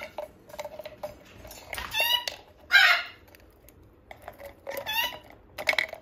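A macaw giving three short squawking calls, about two, three and five seconds in, with light clicks and taps in between as it handles a small glass jar.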